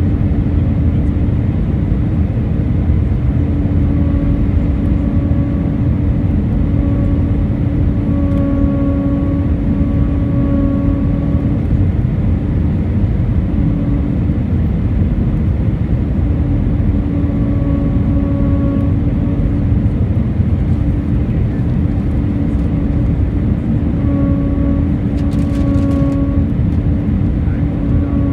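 Steady low roar inside the cabin of an Airbus A319 on final approach. Over it, a droning hum keeps fading in and out in stretches of a second or two. This is the weird sound the passenger had never heard before on an A320-family aircraft.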